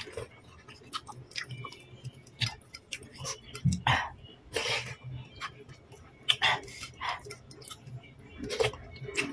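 Close-up eating sounds: irregular wet slurps of instant noodles and rice vermicelli in broth, with chewing and small clicks of a plastic fork and spoon against the bowl.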